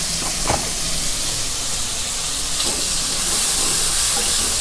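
Pork and tofu frying in a wok with freshly added sauce: a steady sizzling hiss that grows a little louder after about three seconds as a wooden spatula stirs it. There is one sharp utensil knock about half a second in.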